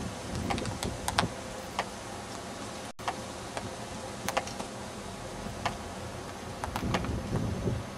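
Scattered sharp clicks and ticks at irregular intervals over a steady low background noise, with a momentary break in the sound about three seconds in.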